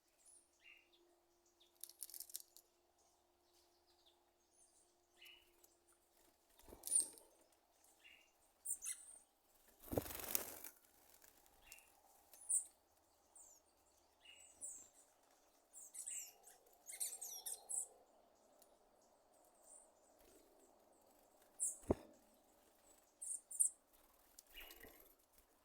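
Sabiá thrush giving short, scattered high chips and sharp pops, irregular like popcorn popping.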